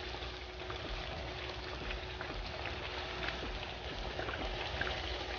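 Chicken wings sizzling in a pan of sticky sweet chilli sauce: a steady hiss with scattered small pops and crackles.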